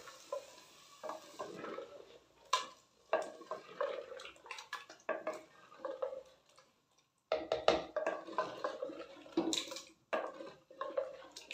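Wooden spoon stirring chicken in a thick onion-tomato purée in an earthenware cooking pot: irregular scrapes and knocks of wood against the clay, with a short pause about seven seconds in.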